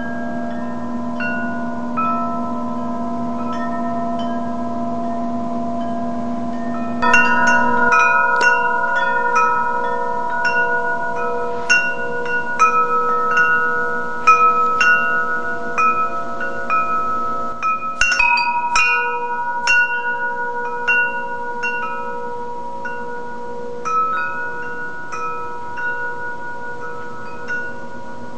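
Metal-tube wind chime ringing as the clapper strikes the tubes again and again, each strike leaving overlapping tones that ring on. About seven seconds in, the strikes become louder and more frequent.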